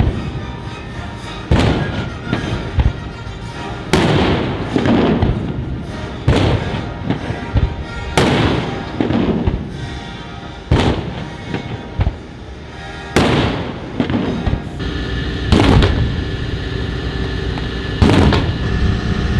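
Ship's cannons firing one after another, about nine sharp booms every two seconds or so, each trailing off in a long echoing rumble.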